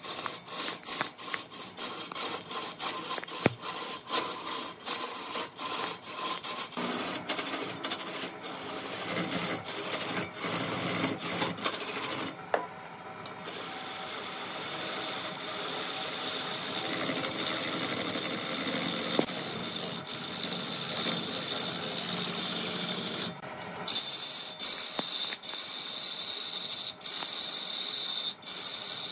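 Wood being worked on a spinning lathe, a rasping cut of the tool against the turning wood. It is stop-start for the first dozen seconds, with short breaks about once or twice a second, then runs steadier with two brief pauses.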